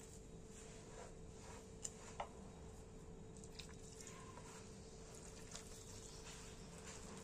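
Faint soft squishing and rubbing of a hand working crumbly barley flour and natural sourdough starter together in a glazed clay bowl, with two light clicks about two seconds in, over a faint steady hum.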